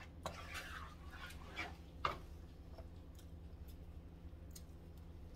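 Faint scraping and a few soft taps of a wooden spoon stirring thick cheese sauce in a pan, over a low steady hum.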